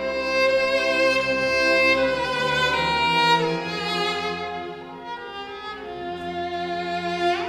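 Solo cello playing a slow, legato melody over a sustained string orchestra accompaniment, sliding between notes, with a quick upward slide near the end.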